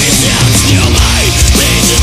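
Loud, dense melodic death metal track, with distorted guitars, bass and fast, driving drums.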